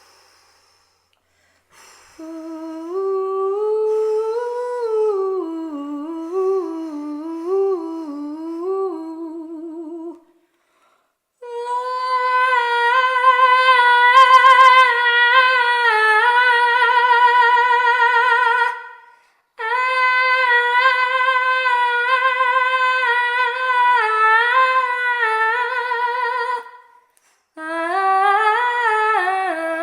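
Solo wordless vocal chant, an intuitive healing chant: long held, wavering notes sung in four phrases with short breaths between them. The first phrase is lower and slides up and down, and the later phrases hold higher.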